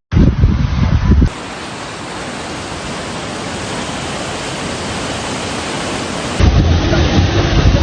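Storm noise: a steady, even hiss of a heavy downpour for about five seconds, between two short stretches of rumbling gusts of wind buffeting the microphone, joined by abrupt cuts.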